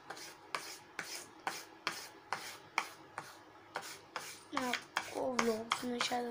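Blue colour rubbed back and forth on a paper sheet while colouring in a drawing, a dry scratching stroke about twice a second. From about four and a half seconds in, a voice hums a steady held note over the strokes.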